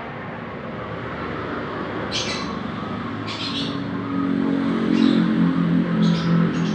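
A cucak ijo (green leafbird) gives short, sharp calls several times, while a motor vehicle's engine hum swells in the second half and is the loudest sound.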